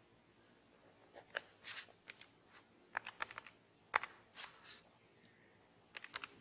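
Faint pen strokes on paper mixed with scattered light clicks and taps, including a quick run of clicks about three seconds in.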